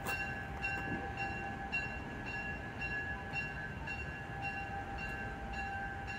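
A railroad bell ringing steadily, a little under two strikes a second, each strike ringing on.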